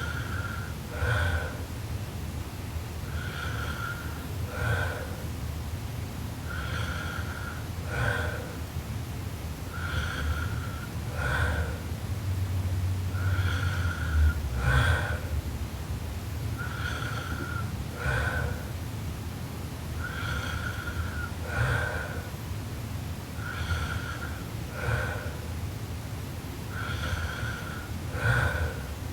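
A sleeping girl snoring in an even rhythm, one breath about every three and a half seconds. Each breath is a short, steady high-pitched tone followed by a brief snort.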